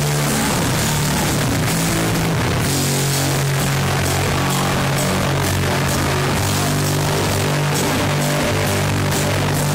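Live heavy metal band playing loud, with heavily distorted guitars holding low sustained chords over drums and cymbals.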